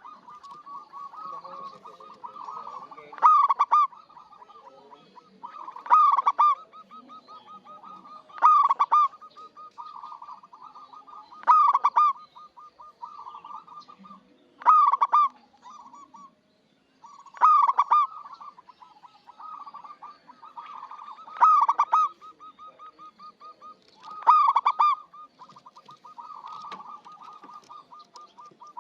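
Zebra dove (perkutut) singing: a loud, rapid cooing phrase repeated about every three seconds, around nine times, with softer trilled cooing notes between the phrases.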